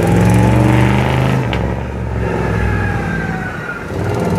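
Monster-truck school bus's engine running hard as it drives through a tight turn, easing off about a second and a half in and picking up again near the end.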